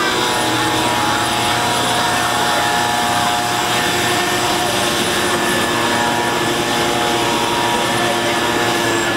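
A small-engine handheld leaf blower running steadily, its engine pitch wavering slightly as it blows air over an elephant's hide to clean the dirt off.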